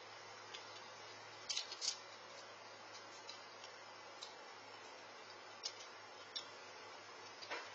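Steady low hiss with a faint low hum from a Nest outdoor security camera's microphone, with a few faint scattered clicks and ticks: a small cluster about two seconds in and single ones later.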